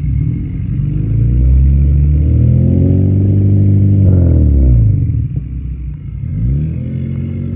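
Honda four-cylinder engine fitted with a Skunk2 Alpha header and aftermarket exhaust, revved twice. The pitch climbs over a couple of seconds and holds, drops back about five seconds in, then climbs again near the end.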